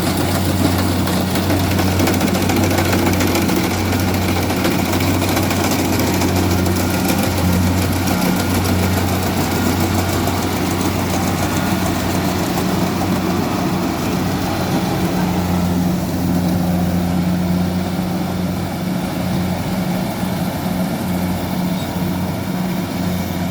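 Kubota combine harvester's engine running steadily, a constant low hum under a wide mechanical noise. The higher part of the noise eases off about two-thirds of the way through.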